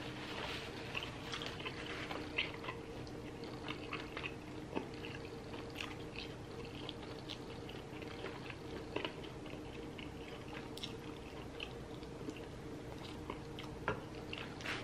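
Close-up chewing of fried chicken wings dipped in cheese sauce: wet mouth sounds with many small crackles and clicks, over a faint steady hum.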